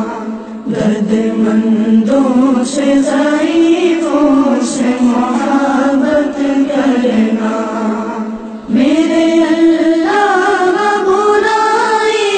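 A single voice chanting a prayer as a slow melody with long held notes, breaking off briefly about eight and a half seconds in before going on.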